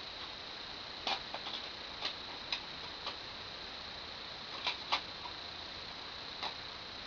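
About ten light, irregular clicks and taps, a few close together, over a steady hiss with a thin high-pitched whine.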